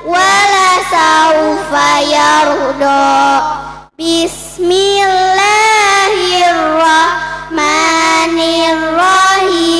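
A girl's voice reciting the Qur'an in a melodic chant through a PA system, with long held notes and ornamented turns over a steady low hum. The sound cuts out briefly about four seconds in.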